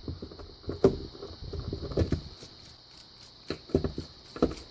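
Irregular small clicks and taps of a screwdriver and padlock being handled as the Phillips screw in the padlock's shackle hole is backed out to take the lock apart.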